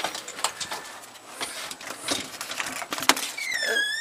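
A front door being opened: several clicks and knocks from the latch and handle, then a high squeak from the hinge about three seconds in as the door swings open.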